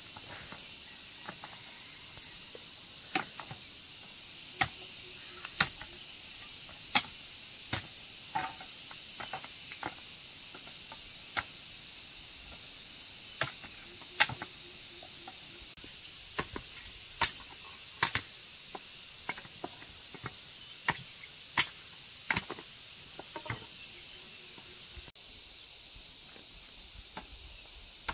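A curved machete chopping sugar cane stalks: irregular sharp chops about one a second, some much louder than others. Under them, a steady high drone of insects.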